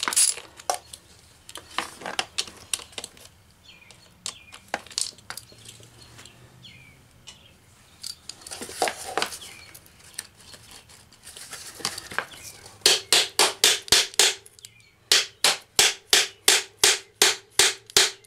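Ratchet wrench clicking on the nut that holds the plastic fan blade to an electric radiator cooling-fan motor's shaft, as the blade is taken off. Scattered clicks and handling knocks come first, then two runs of quick, even ratchet clicks in the last five seconds.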